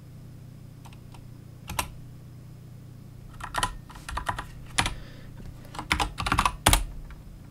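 Computer keyboard keystrokes: a couple of faint taps and one sharp press near the start, then a quick run of typing from about three and a half seconds in, with the loudest presses near the end.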